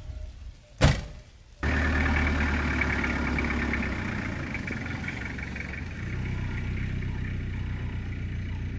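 A sharp bang, then about a second and a half in a vehicle engine starts abruptly and runs at a steady idle; the vehicle is plausibly a Toyota Land Cruiser.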